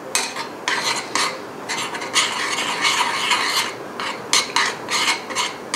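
A spoon scraping and stirring around a stainless steel frying pan in quick repeated strokes, about three a second, mixing a gochujang sauce until the paste dissolves.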